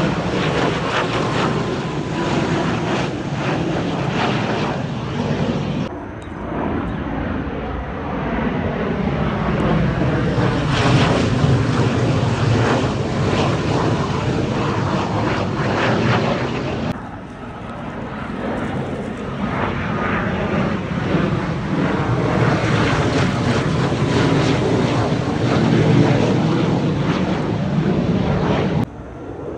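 Military jet aircraft flying low overhead: a steady, loud jet engine noise with faint tones that slowly sweep in pitch as they pass. The sound breaks off abruptly about six and seventeen seconds in and again near the end, where the footage is cut.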